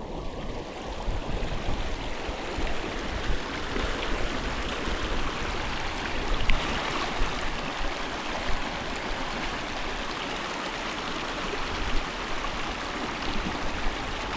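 Flowing river water: a steady, even rush with a few faint clicks.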